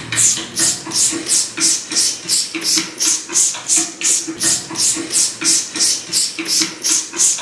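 Hand trigger spray bottle squirting quickly and repeatedly, about three short hissing sprays a second in an even rhythm.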